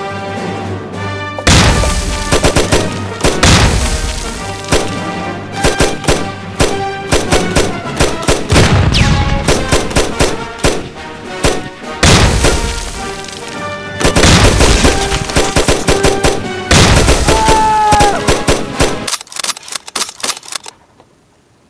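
Machine-gun fire sound effects in long rapid bursts over dramatic music, with a falling whistle near the end before the firing dies away.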